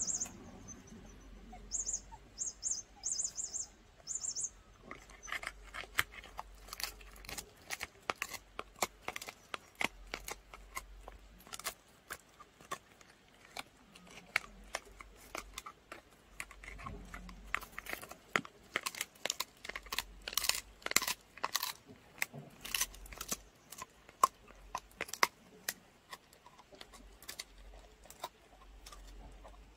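Dog gnawing and crunching a dried pig ear, with many sharp, irregular crunches, several a second, from about five seconds in.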